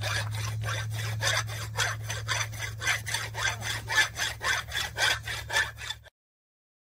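Hand file rasping back and forth across the metal hub of a new folding boat propeller as it is filed to fit, about four strokes a second over a steady low hum. It cuts off suddenly near the end.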